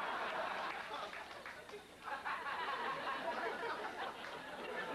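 Studio audience laughing and applauding in response to a punchline, a dense crowd noise that dips briefly about two seconds in and then swells again.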